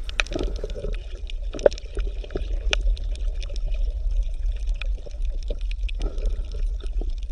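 Bubbling, gurgling water over a steady low rumble, with many small pops and clicks.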